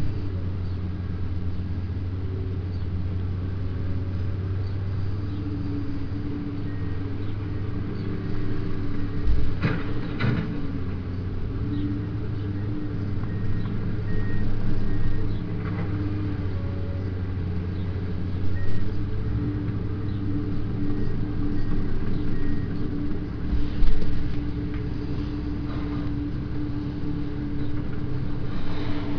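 Komatsu tracked excavator's diesel engine running steadily under working load. A few sharp clanks come about ten seconds in, and a heavier thump comes later, as its bucket handles hardcore stone.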